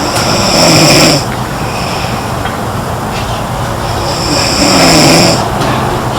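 A girl snoring: two loud snores, one starting about half a second in and another about four seconds later, each lasting about a second, in a slow, even breathing rhythm.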